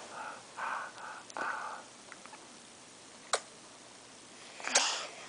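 Quiet breathy sounds close to the microphone: a few short puffs of breath in the first two seconds, a single sharp click a little past the middle, and one more breathy puff near the end.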